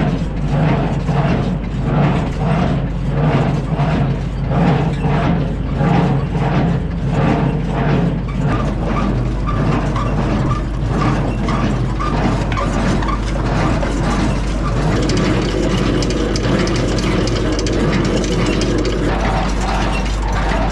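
Hay implement's drive chains and sprockets running at tractor idle, clattering rhythmically at about two strokes a second at first and then more evenly, while being oiled with chain lube. A higher hiss joins in about three quarters of the way through.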